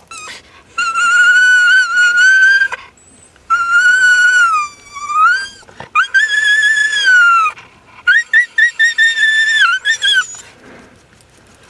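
A dog whining in four long, high-pitched calls whose pitch wavers up and down, the last breaking into a quick run of short whimpers.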